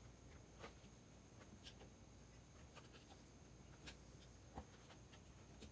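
Near silence with faint, scattered clicks and taps, about one a second.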